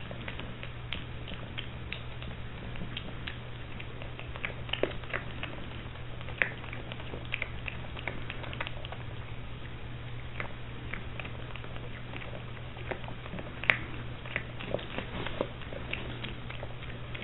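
Piglet eating dry food pellets: a quick, irregular run of small crisp crunches and bites, with a few louder ones, over a steady low hum.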